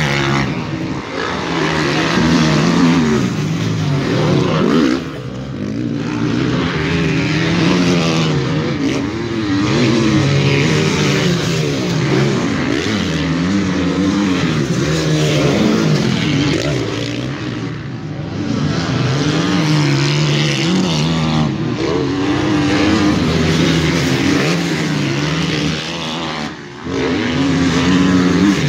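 Motocross bike engines racing, revving up and falling back over and over as the riders open and close the throttle, with short dips about five seconds in and near the end.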